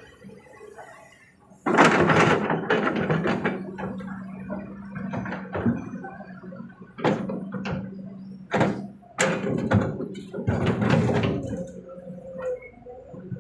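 Kobelco SK200 excavator dumping a bucket of soil and rocks into a dump truck's bed: a sudden loud spill about two seconds in, followed by scattered thuds and knocks, over the steady hum of the diesel engine.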